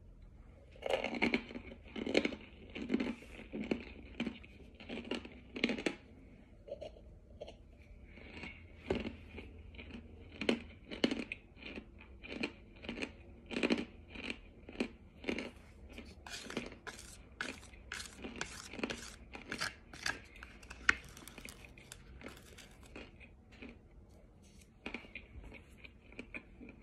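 Close-up crunching and chewing of hard baked cornstarch chunks: a steady run of crisp, brittle crunches, roughly two a second, as the pieces are bitten and ground down.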